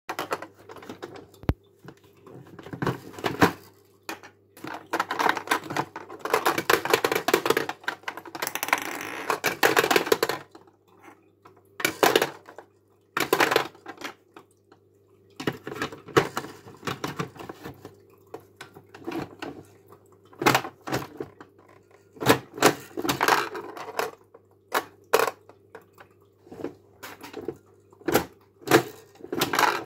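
Claw machine being played: irregular mechanical clicking and rattling in bursts, the longest and densest run lasting several seconds, over a steady low hum.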